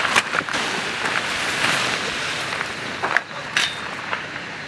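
Rustling of a large, stiff mesh mosquito screen being gathered up and shaken out by hand, with a few sharp clicks and knocks; the rustling eases off about three seconds in.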